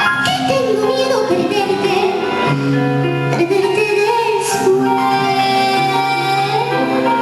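Music: a song with a female voice singing a melody over instrumental backing with sustained notes.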